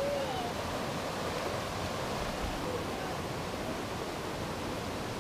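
Steady rushing of creek water, an even hiss with no breaks.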